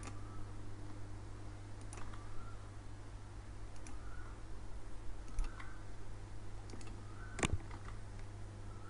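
A handful of separate computer mouse clicks, spaced a second or so apart, the loudest about seven and a half seconds in, over a steady low electrical hum.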